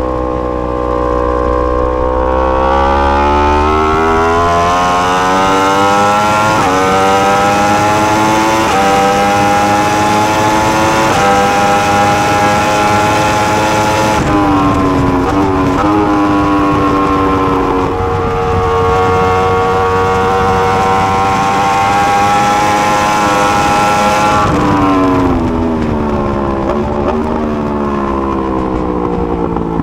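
2020 Yamaha R1M's crossplane inline-four accelerating hard, climbing in pitch through the gears with sudden drops at each upshift. About halfway and again near the end the engine note falls in quick steps, a run of downshifts, before it pulls up again.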